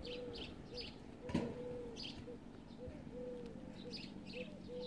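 Birds calling: a run of short, low, arching notes about twice a second, with bursts of high chirping. There is a single sharp knock about a second and a half in.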